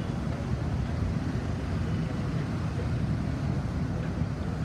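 Steady low rumble of traffic on a busy city avenue.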